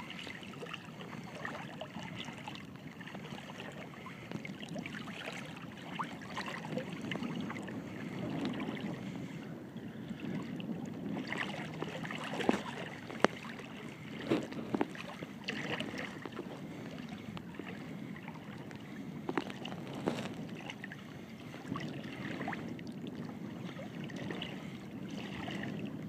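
Small choppy waves lapping and splashing close to the microphone, with a few sharper slaps of water through the middle.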